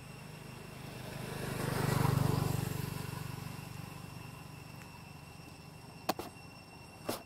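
A motor vehicle passing by off-screen: its engine hum rises to its loudest about two seconds in, then fades away. Two short sharp clicks come near the end.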